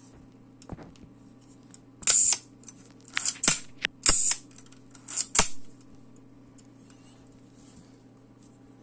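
FED 4 rangefinder camera being wound and fired: four short bursts of winding rasp and sharp shutter clicks from its cloth focal-plane shutter, between about two and six seconds in.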